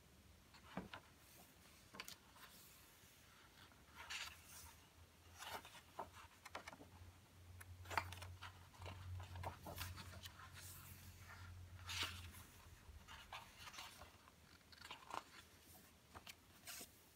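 Faint rustling of paper pages being turned by hand and pressed flat on a coloring book, with a scatter of soft flicks and taps, two of them a little louder about eight and twelve seconds in.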